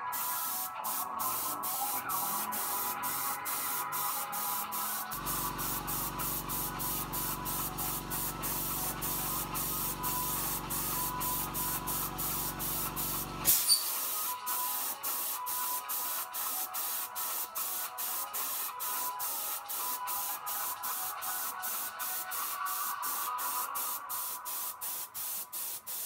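Spray gun hissing as it sprays paint onto a bicycle frame, the hiss broken by short gaps several times a second. A low mechanical hum runs for about eight seconds in the middle and stops with a sharp click.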